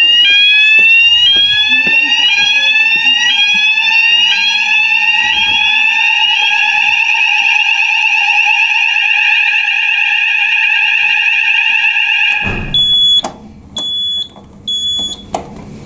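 Fire alarm sounder going off during a test: a loud rising sweep tone repeats about one and a half times a second over a steady lower tone, then settles into a continuous tone. About twelve seconds in it cuts off suddenly, and three short high beeps follow.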